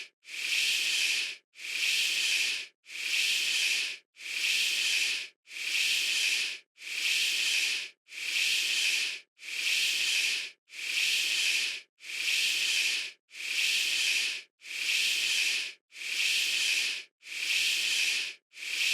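A stock hissing sound effect looping: even bursts of hiss, each lasting about a second, repeating about every 1.3 seconds with short silent gaps between them.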